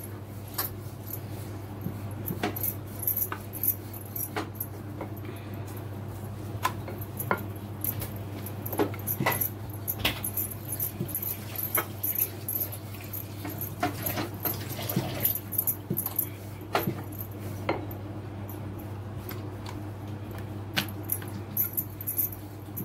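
Wooden rolling pin rolling dough out on a stone board, with irregular light clicks and clinks as the pin moves back and forth, over a steady low hum.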